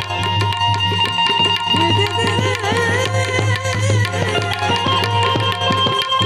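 Instrumental interlude of Gujarati folk music: a harmonium holding sustained notes over a fast, steady hand-drum rhythm.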